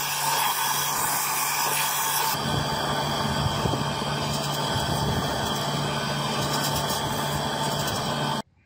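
Belt sander running, its abrasive belt grinding down a white-wood sword handle inlaid with brass diamonds: a steady motor hum under the rasp of sanding. The sound changes about two seconds in as the wood moves to the curved end of the belt over the roller, and it cuts off suddenly near the end.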